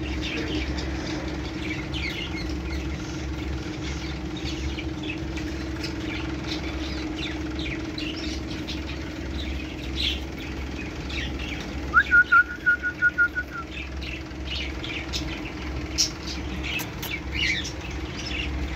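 Small birds chirping on and off over a steady low hum. About twelve seconds in comes a quick run of about eight loud, even notes at one pitch.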